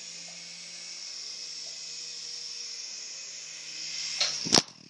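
Protocol Tigerjet mini RC helicopter's electric motors and rotors running with a steady high whir, then two sharp knocks about four seconds in as it hits something, after which the whir becomes much quieter.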